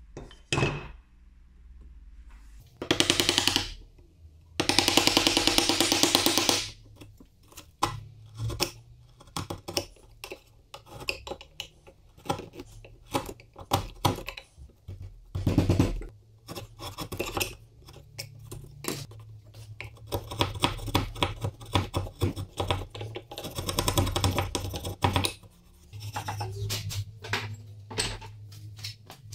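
Hand tools cutting into a beech plane body's throat mortise: two longer scraping strokes about three and five seconds in, then a long run of sharp chisel cuts, taps and knocks on the wood.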